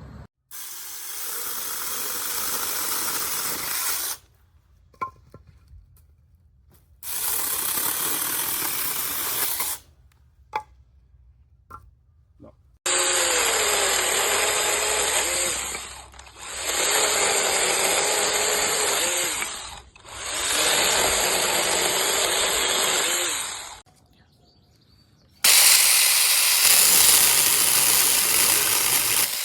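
Peektook 6-inch cordless mini chainsaw running in six bursts of three to four seconds each, with short pauses and small knocks between them. In the middle bursts its pitch wavers as it cuts into wood.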